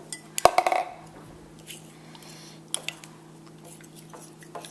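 Spoons knocking against glass bowls: a quick cluster of clinks about half a second in, then a few single light taps while a plastic spoon stirs borax solution into glue to form slime in a glass bowl.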